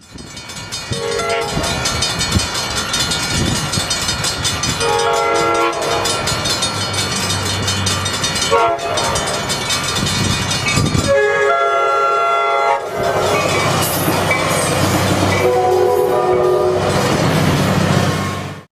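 Coaster commuter train sounding its multi-note horn for a grade crossing in long and short blasts: two long, one short, then a longer one, over the steady rumble and wheel clatter of the train rolling by. A low diesel engine drone rises in the second half as the train passes.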